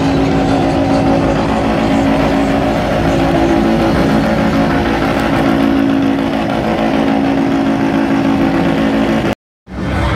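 A truck engine idling steadily, with a constant hum, cutting out for a moment near the end.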